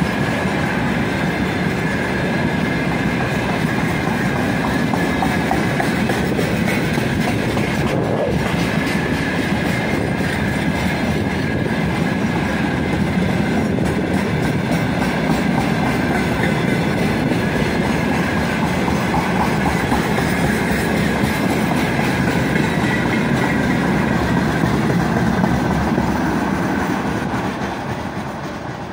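Tank cars of a long freight train rolling past, their wheels rumbling and clacking steadily over the rails with a thin high whine on top. The noise fades near the end as the last car passes and the train draws away.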